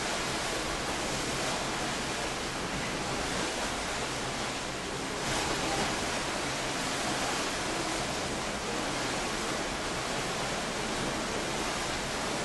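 Steady rushing of wind and choppy sea water heard from a moving ship, an even hiss with no separate events.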